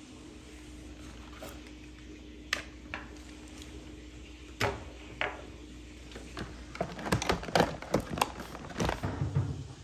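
Handling knocks: a few single taps, then a quick run of clatters and thuds in the last few seconds as a game console and its cables are set down into a clear plastic storage bin. A faint steady hum sits underneath.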